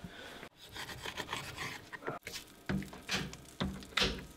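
Kitchen handling at a frying pan: rubbing and scraping with several sharp knocks in the second half, over a faint crackle of hot butter. The sound breaks off briefly twice.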